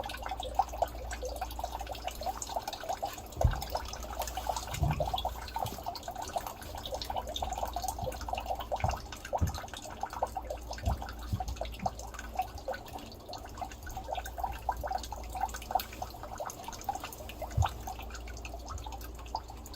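Dirty water draining from a washing machine's opened drain-pump trap, dripping and trickling steadily into a bucket. A few dull thumps come through now and then.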